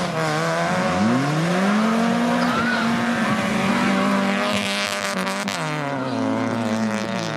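Rally car engine revving hard under acceleration on a dirt stage: its pitch climbs steeply about a second in, holds high, then falls back late on as the driver lifts off.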